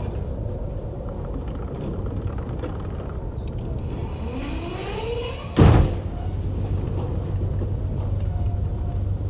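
Low rumble of heavy machinery, then a brief rising whine and a single loud metal crash a little past halfway: a B-52 airframe being smashed apart for scrap.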